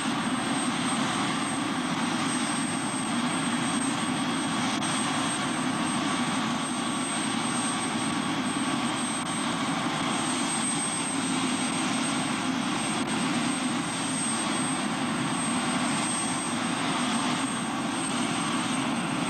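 Helicopter running on the ground after landing, its engine and rotor making steady, unbroken noise.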